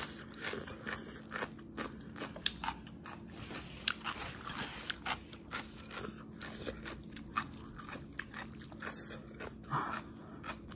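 A person chewing food close to the microphone: irregular wet mouth clicks and crunches, several a second.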